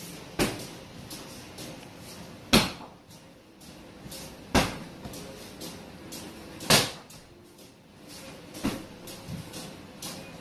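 Barefoot kicks landing on an Everlast hanging heavy bag: five hard thuds about two seconds apart, with fainter knocks in between.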